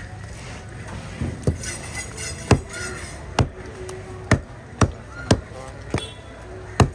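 Heavy cleaver-style fish knife chopping through barracuda flesh and bone into the wooden cutting block: about nine sharp chops, spaced half a second to a second apart.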